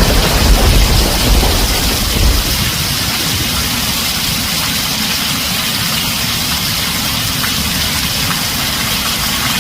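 Heavy rain drumming steadily on a tin roof. A low thunder rumble dies away over the first couple of seconds.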